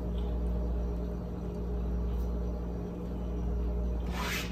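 A steady low hum, with a short hiss near the end.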